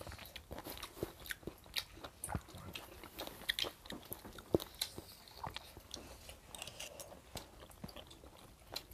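Mouth sounds of eating boiled pig intestines: irregular small clicks and crackles of biting and chewing at close range.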